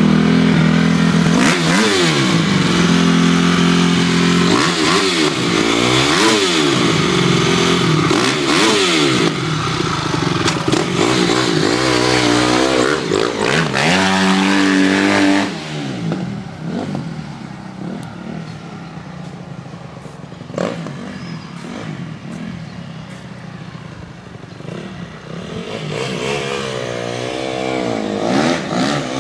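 Honda CRF250R four-stroke single-cylinder motocross bike revving up and down repeatedly as it is ridden. It is loud for about the first fifteen seconds, drops away as the bike moves off, and grows louder again near the end as it comes back.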